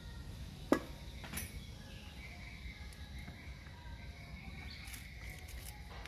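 One sharp knock, like something hard struck or set down, about three-quarters of a second in, then a lighter click and a few faint clicks near the end, over a low steady background rumble.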